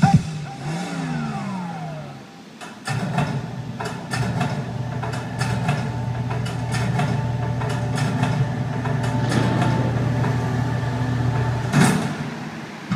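Sound effects from a building projection show's soundtrack over outdoor loudspeakers: falling pitch glides, then a steady low engine-like hum scattered with short clicks, ending in a loud hit about twelve seconds in.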